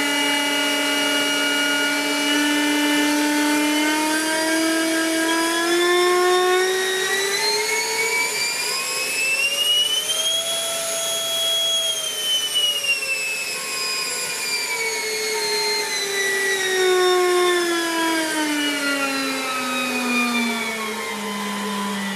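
Electric ducted fan of a Multiplex Twister EDF model jet being throttled up and back down. Its whine rises steadily to a peak about ten seconds in, holds there briefly, then winds back down to a lower whine near the end.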